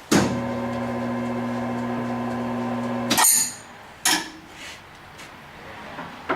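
Clausing Nardini MS 1432E lathe switched on in a low spindle speed: the motor and headstock gearing start at once and run with a steady hum for about three seconds, then stop abruptly with a clunk. A single sharp click follows about a second later.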